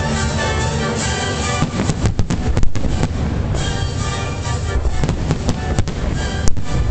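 Orchestral music with fireworks going off over it: sharp bangs and crackles that come in clusters about two seconds in and again from about five seconds on.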